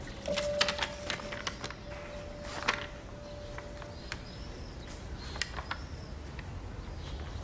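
Quiet room sounds: scattered light knocks and clicks in the first few seconds with a faint held tone under them, then a few short high chirps around the middle.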